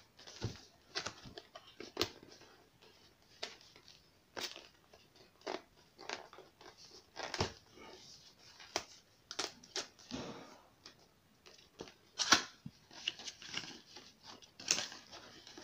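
Cardboard box being handled and opened by hand: irregular sharp clicks, scrapes and rustles of the lid and inner flaps, the loudest a little after twelve seconds in.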